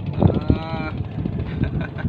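A person's drawn-out voiced sound, held for most of a second near the start, over low knocking and boat noise.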